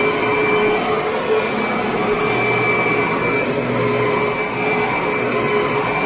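Kirby upright vacuum cleaner running steadily as it is pushed over carpet, a steady whine over the rush of air.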